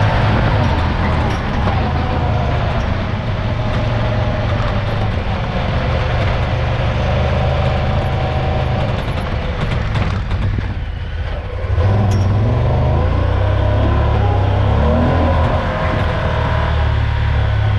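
Honda Pioneer 1000-5 side-by-side's parallel-twin engine running under throttle as it drives over sand dunes, heard from the open cab. About ten seconds in the engine eases off briefly, then picks up again about two seconds later.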